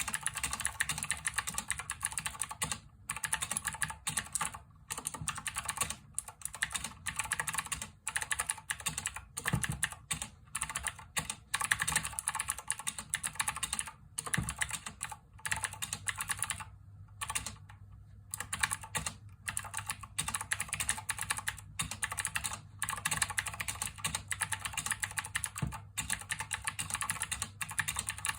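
Fast typing on a Cooler Master CK550 V2 mechanical keyboard with clicky blue switches: a dense stream of sharp key clicks in runs of a second or two, broken by brief pauses.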